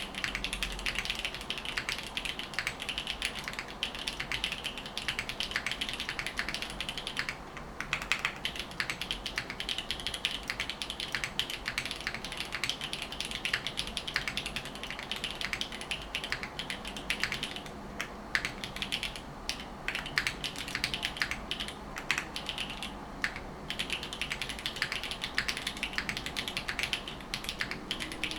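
Continuous fast typing on a custom 60% mechanical keyboard (Neo60 Core) with HMX K01 light tactile switches on an FR4 plate and GMK keycaps: a dense stream of crisp key clacks, with a short pause about seven seconds in and a few brief gaps later on.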